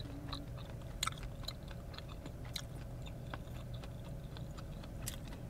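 Close-miked chewing of a French toast stick, with scattered small clicks as the mouth works.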